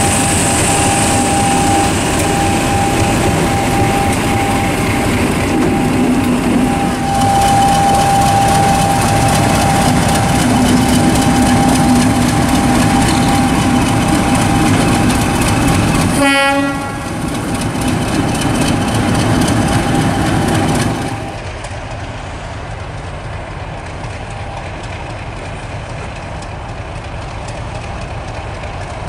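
Class 50 diesel locomotive's English Electric 16-cylinder engine running close by, heavy and steady with a constant whine over it. About sixteen seconds in there is a short horn blast. From about twenty-one seconds the engine is heard much more quietly.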